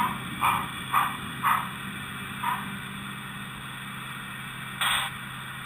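HO-scale model steam locomotive chuffing: a few puffs about half a second apart that fade out after about two and a half seconds, over a steady low hum from the running train. One short hiss comes near the end.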